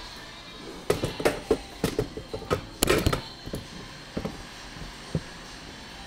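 A quick run of sharp knocks and clicks, about a dozen in two and a half seconds, then a few scattered ones: handling noise from the camera as it is swung round and steadied.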